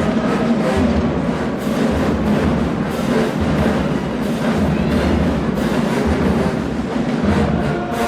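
Marching band playing: brass holding sustained chords over a steady drum and bass-drum beat.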